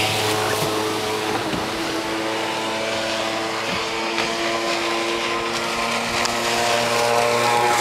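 Motorboat engine running at a steady pitch, heard from aboard the boat's stern, over a rush of wind and water noise.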